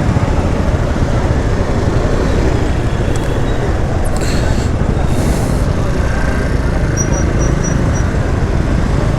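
Steady road and traffic noise with heavy wind rumble on the microphone while riding through congested city traffic, with two short hisses about four and five seconds in.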